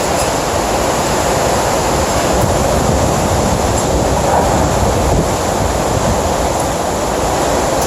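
Hurricane-force wind of a Category 4–5 hurricane blowing without a break, a dense, steady rushing noise with a deep low rumble under it and only slight swells as gusts rise and fall.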